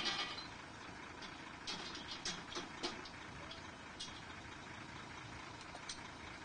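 An engine idling steadily, with a short loud burst at the very start and a run of sharp metallic clicks and knocks about two to three seconds in, as a steel bar is worked against a house-moving dolly's wheels and frame.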